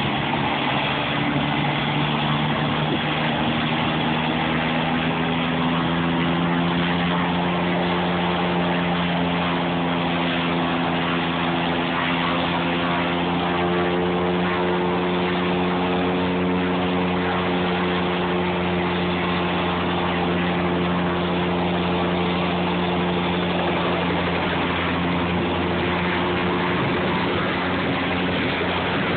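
Light turbine helicopter running on the ground with its main rotor turning, ahead of take-off: a steady engine whine and rotor hum over a constant rush of air.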